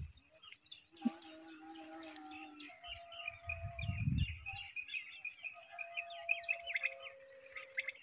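Many small birds chirping and twittering in quick, overlapping calls, with a brief low rumble in the middle.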